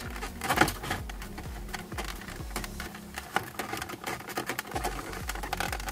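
Plastic instrument-cluster housing of a Ford Fiesta MK7 ST creaking and clicking in rapid, irregular ticks as it is rocked and pulled against its fit in the dashboard.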